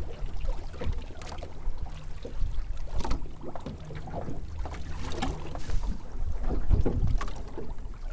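Low rumble of wind on the microphone aboard a small boat, with light clicks and rustling from fishing line and tackle being handled.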